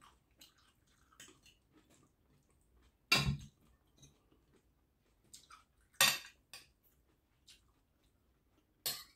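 A spoon clinking against a plate: three sharp clinks about three seconds apart, with faint small ticks between them.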